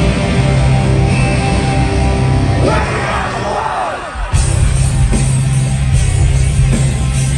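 Live rock band playing loud, distorted electric guitars, bass and drums, heard from the crowd. About three seconds in, sweeping gliding tones rise and fall over a thinner backing, then after a brief dip the full band comes back in louder with cymbals.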